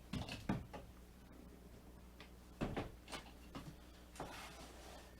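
A few light knocks and clunks of gear being handled and set down, with a brief rustle near the end.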